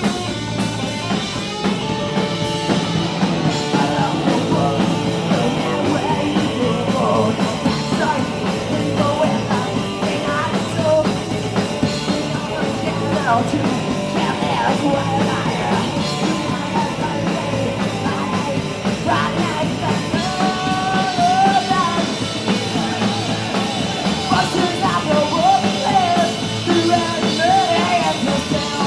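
Live punk rock band playing loud, with a full drum kit, guitars and bass, and a melody line gliding over the top.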